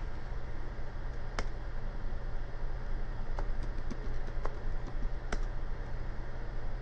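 Computer keyboard keys tapped a few at a time, sparse separate clicks, as a password is typed at a console login prompt, over a steady low hum.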